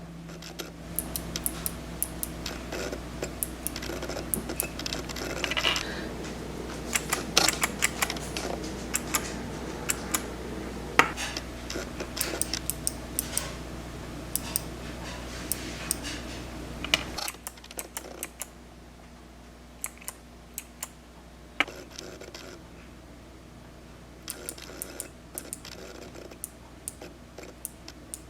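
Kailh clicky keyboard switches in 3D-printed clicker toys being pressed over and over, giving sharp, irregular clicks in clusters. A steady low hum from the camera's autofocus sits underneath and drops away about two-thirds of the way through.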